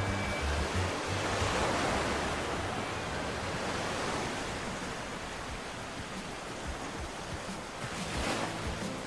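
Small waves breaking and washing up over a sandy beach, a steady surf hiss that swells as a wave comes in about two seconds in and again near the end.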